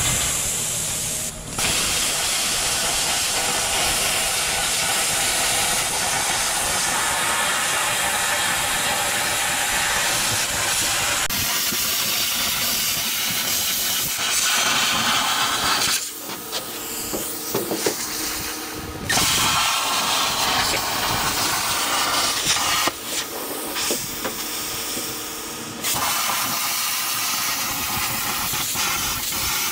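Handheld plasma cutter cutting through steel plate: a loud, steady hiss of the arc and its air. It cuts out for a moment near the start, and twice drops lower for a few seconds as the torch is moved along the cut.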